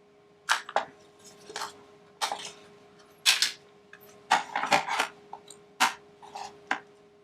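Irregular sharp clicks and clacks of hard plastic and metal as a 2.5-inch hard drive is slid out of an external drive enclosure and handled, about a dozen in all, over a faint steady hum.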